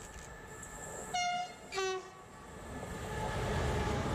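SNCB electric locomotive's two-tone horn giving two short blasts, a higher note then a lower one, as the train approaches. A rumble then builds as the double-headed freight train draws close and passes.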